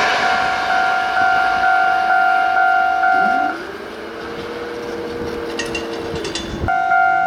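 Railway level-crossing warning bell ringing, an electronic ding about twice a second. It stops about three and a half seconds in, a hum rises in pitch and holds, and the bell starts again abruptly near the end.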